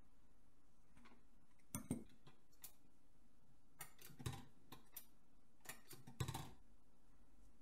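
Scattered light clicks and knocks at irregular spacing, like small hard objects being handled and set down, the loudest about two, four and six seconds in.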